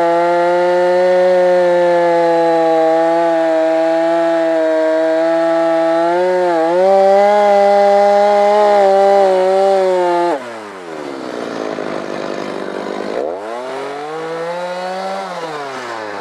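Stihl MS290 two-stroke chainsaw running at full throttle, cutting through a log, with a brief dip in revs about six and a half seconds in. About ten seconds in the revs drop sharply and the saw gets quieter as it comes out of the cut; the engine note then sinks, climbs back and falls again.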